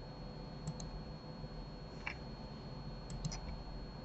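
Faint clicking of a computer mouse and keyboard: a pair of clicks just under a second in and a quick run of three a little after three seconds, over a low steady hum.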